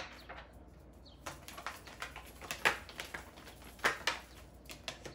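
Tarot cards being shuffled and handled in the hand: a scattering of light card snaps and taps, with two sharper snaps about two and a half and four seconds in.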